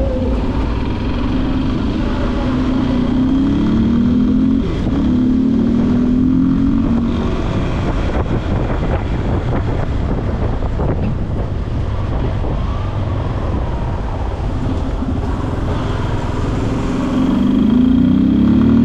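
Yamaha Lander 250's single-cylinder four-stroke engine under way, revving up in several rising pulls as it accelerates through the gears, easing to a steadier pitch in the middle and climbing again near the end, over a steady rushing noise.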